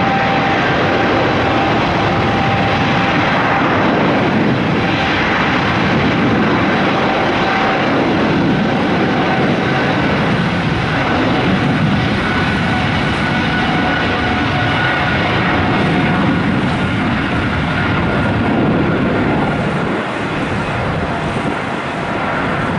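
Boeing 777's twin turbofan engines at takeoff thrust: a loud, steady rush of jet noise with a few faint, steady whining tones running through it. It eases a little near the end.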